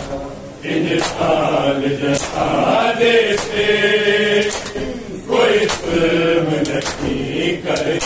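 Men's voices chanting a noha together in phrases, with the sharp slaps of hands striking bare chests (matam) in time, about once a second.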